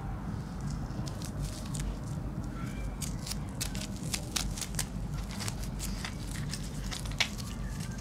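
Hands handling a small object: a run of small, sharp clicks and crackles over a low, steady hum, starting about three seconds in.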